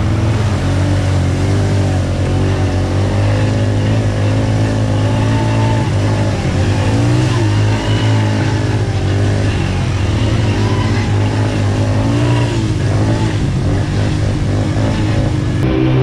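ATV engine running loud and steady, its pitch rising and falling several times with the throttle.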